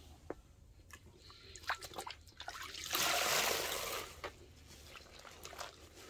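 Sponge soaked in pine-cleaner water and squeezed in a stainless steel bowl. Scattered small drips and clicks come first, then liquid rushes out of the sponge for about a second around three seconds in, followed by soft crackling clicks.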